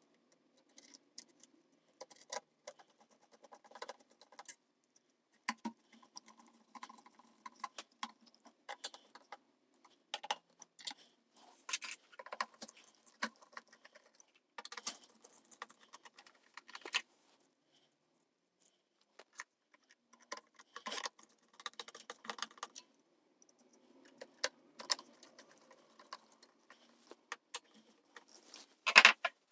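Small metal parts clinking and tapping in irregular bursts, tube retainer hardware and tools being handled while tube retainers are fitted to the amp's tube sockets, with a brief lull two-thirds of the way in and the loudest clatter near the end.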